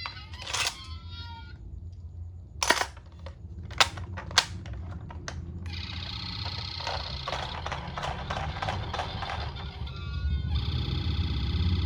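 Toy ambulance minicar: a few sharp clicks in the first five seconds, then from about halfway its electronic siren sounds, a stack of steady tones that grows stronger near the end, over a low rumble.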